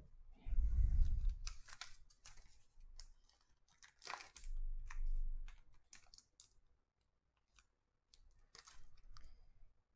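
Clear plastic card sleeve and hard plastic card holder being handled: irregular crinkling rustles and small clicks, with dull bumps against the table twice.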